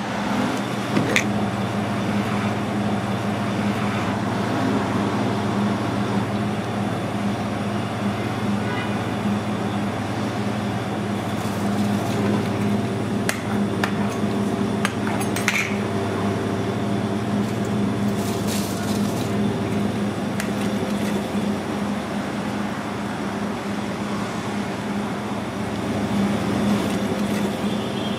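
Steady mechanical drone of commercial kitchen machinery, with a few scattered clicks and clinks of utensils on the counter.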